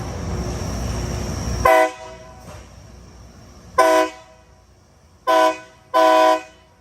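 A low, heavy rumble of rail machinery that stops abruptly, then a railroad air horn sounding four short blasts, the last a little longer.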